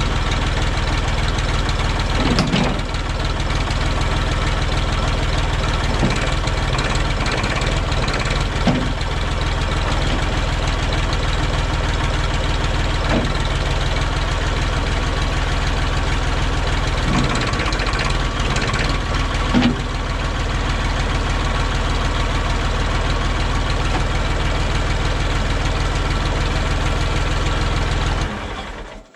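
Massey Ferguson loader tractor's engine running steadily, its note dipping briefly a few times as the loader hydraulics are worked against the newly fitted diverter valve, then cutting off suddenly near the end as the engine is shut down.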